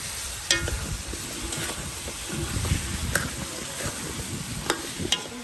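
Pumpkin cubes sizzling in hot oil in a pot over a wood fire as they are stirred, with a steady frying hiss and several sharp clicks.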